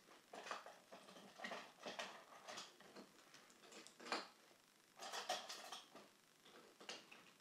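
Faint, scattered clicks and light knocks of pencils and small hard objects being rummaged through and picked up, with a denser cluster of clatter about five seconds in.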